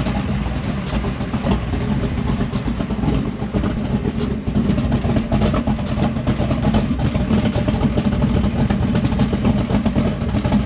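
A 540 cubic-inch big-block Chevy V8 stroker running steadily through a true dual 3-inch exhaust with Borla XR-1 mufflers, heard close to the exhaust at the rear of the truck. It is a loud, deep, pulsing exhaust note that grows slightly louder in the middle.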